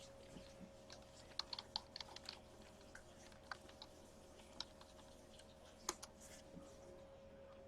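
Faint, irregular clicking of typing on a computer keyboard, over a faint steady hum.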